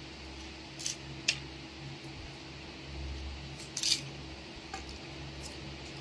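Crisp fried wafers being bitten and crunched close to the microphone: a few sharp crackling crunches, the loudest about four seconds in, over a steady low hum.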